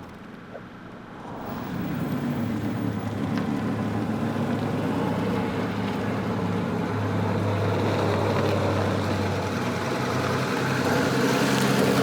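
Volvo 164's B30 straight-six engine running as the car is driven, quiet for the first second or so, then louder and steady, building again near the end. This is the worn-out B30 that is about to have its head pulled.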